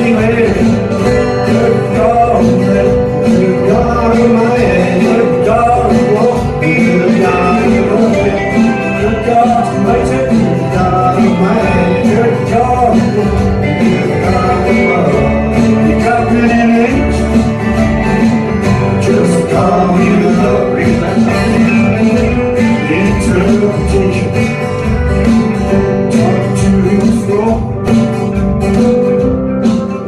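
Live band playing with strummed acoustic guitar, electric guitars and drums, to a steady beat.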